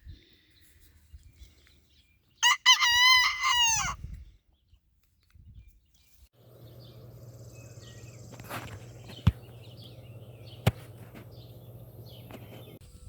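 Bantam rooster crowing once, about two and a half seconds in. Later a quieter steady low hum starts, with two sharp clicks in it.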